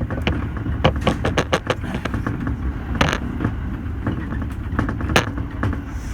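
Subway train running between stations, heard from inside the car: a steady low rumble with frequent sharp clicks and rattles, and louder knocks about three seconds in and again about five seconds in.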